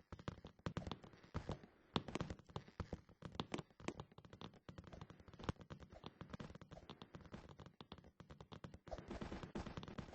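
Faint handling noises: scattered small clicks and light taps, as of objects and packaging being handled. They thin out in the middle and pick up again near the end.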